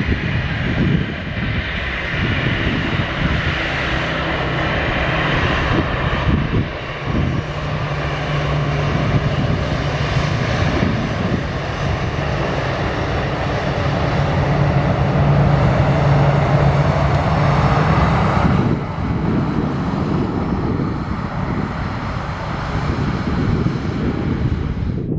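Airbus A319-111's CFM56 jet engines running, a steady rushing roar with an even low hum underneath. About three-quarters of the way through, the sound changes suddenly and loses much of its higher hiss.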